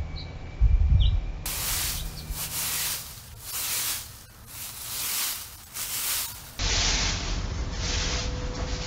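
Plastic-bristled broom sweeping fallen flower petals across grass: repeated swishing strokes, roughly one a second. A brief low thump about a second in.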